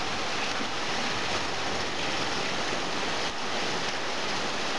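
Heavy rain mixed with hail pouring down in a storm, a steady dense hiss.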